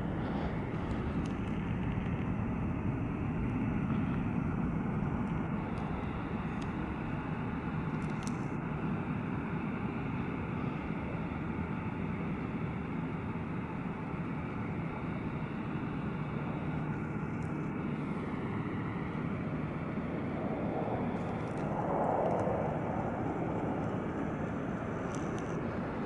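Distant jet airliner engines at an airport, a steady low rumble as the planes taxi on the airfield. A brief swell of noise comes about three-quarters of the way through.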